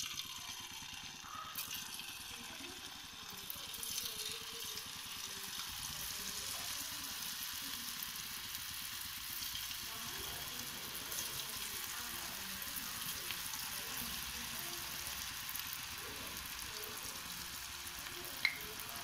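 Gram-flour-coated chickpea clumps (masala kadala) deep-frying in hot oil: a dense, steady sizzle with fine crackling. It gets a little louder about three to four seconds in.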